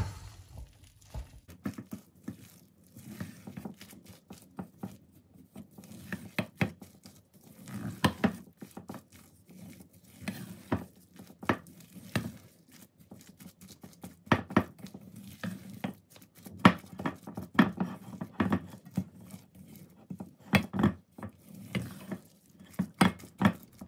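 Spatula folding chopped vegetables into a thick batter in a stainless steel bowl: wet stirring with irregular knocks and scrapes of the spatula against the bowl.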